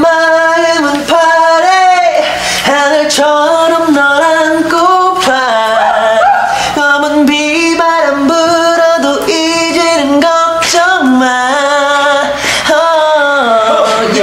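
A pop song: a sung vocal melody with held and gliding notes over a backing track.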